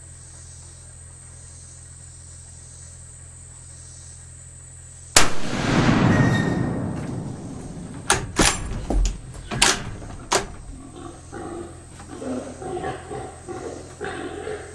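A single .300 Winchester Magnum rifle shot about five seconds in, a sudden loud blast with a long fading echo. A few sharp clicks follow, then repeated squealing calls from a shot wild hog.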